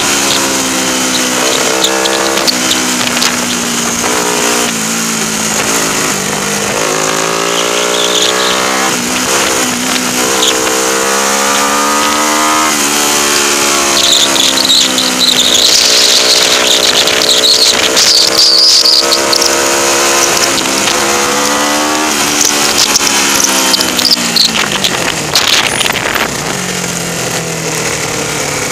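Race-prepared 1977 Honda 125 twin's four-stroke parallel-twin engine heard onboard at speed, revving up and dropping back repeatedly as it changes gear, with wind rush. Near the end the revs fall and settle into a lower, steady note as the bike slows.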